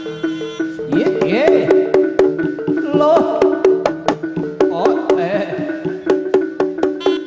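Live Javanese jaranan music: kendang hand drums and other percussion striking a quick, steady beat under a repeating pattern of pitched notes, with a melody line sliding up and down in pitch about a second in and again near five seconds.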